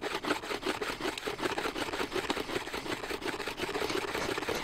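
A chunk of chaga fungus rubbed quickly back and forth along a carved V-groove in a wooden stick, in fast, even rasping strokes, several a second. It is a fire-plow attempt, the friction meant to heat the wood and chaga up to an ember.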